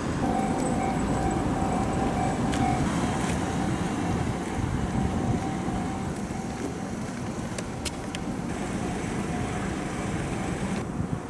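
A train running slowly past: a steady rumble with a held tone over it, easing off slightly in the second half, with a few sharp ticks.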